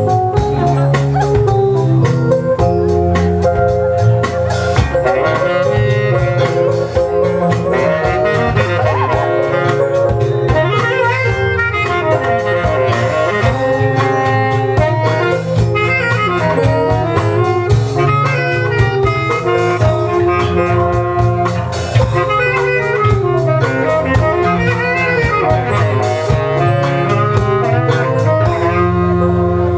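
Live band music in a jazz-blues style: a saxophone plays the melody over a drum kit keeping a steady beat.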